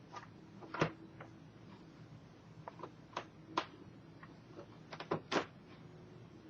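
Scattered light clicks and taps of hands and a small screwdriver on a laptop's plastic and metal screen parts as the panel's mounting screws are worked out. The sharpest click comes about a second in, and a cluster of clicks comes near five seconds.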